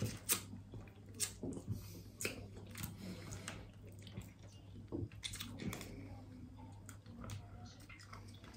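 Close-up eating sounds: boiled lobster and prawn shells being cracked and peeled by hand, with chewing and sucking. Irregular small clicks and snaps run over a low steady hum.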